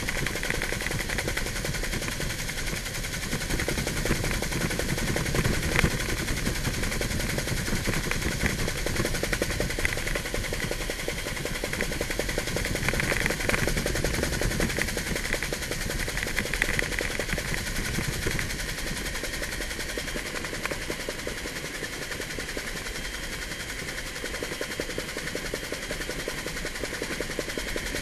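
Helicopter in flight heard from inside the cabin: a fast, steady chop of the rotor blades over a constant rushing engine and air noise.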